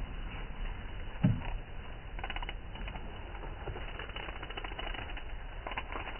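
Footsteps crunching and snapping through dry twigs and forest litter, in scattered clusters of crackling clicks, with a single dull thud about a second in.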